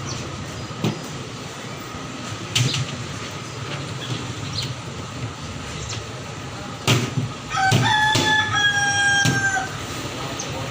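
A rooster crows once near the end, a loud call of about two seconds with a short rising start and a long, slightly falling held note. A few sharp knocks sound earlier over a steady background hum.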